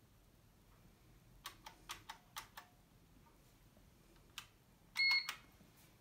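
Keys clicking on a 1988 IBM electric typewriter's keyboard: about six presses in quick succession, then a single press, followed about five seconds in by a short electronic beep from the machine, the loudest sound.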